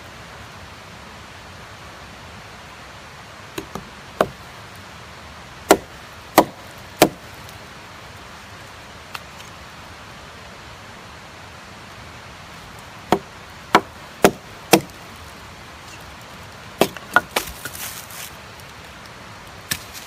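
Hatchet chopping wood on a fallen log: about a dozen sharp, separate strikes in bunches of three or four, with a long pause in the middle and some rustling after a bunch near the end.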